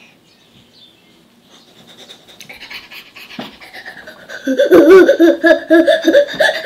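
A young child's voice making rapid, repeated wordless vocal noises that waver in pitch. It sets in about four and a half seconds in and is loud through the end.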